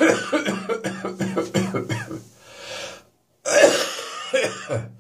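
A person's hacking morning coughing fit, the cough becoming slightly drier. A long run of rapid, harsh coughs is followed about two seconds in by a drawn breath in, then a second bout of coughs.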